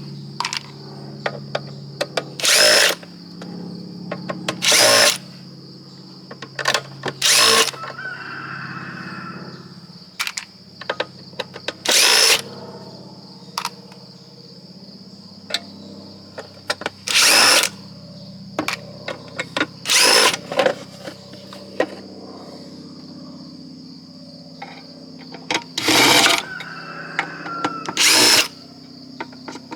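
Power drill or driver run in about eight short bursts, a few seconds apart, backing screws out of the appliance, with small clicks of parts being handled between the bursts. Underneath runs a steady high insect chirring, and in the first seconds there is a low drone from an airplane passing overhead.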